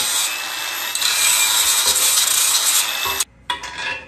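Angle grinder with an abrasive disc grinding the steel of a car subframe's mounting tab, a steady high whine and rasp that cuts off about three seconds in. Light metal clinks follow as parts are handled.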